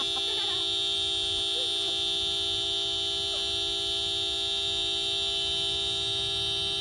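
A steady, unchanging buzzy tone made of several pitches at once, horn-like, with a few faint short gliding sounds over it.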